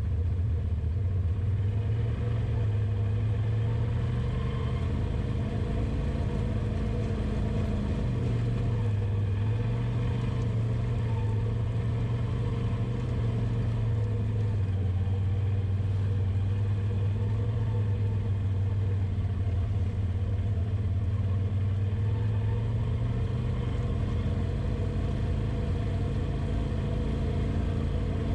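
Side-by-side UTV engine running at low, steady trail speed, a low drone whose pitch drifts only slightly up and down.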